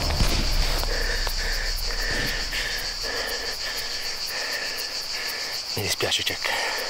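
Insects chirping in woodland: a steady high shrill with a lower chirp repeating about twice a second. A couple of short, low sounds come near the end.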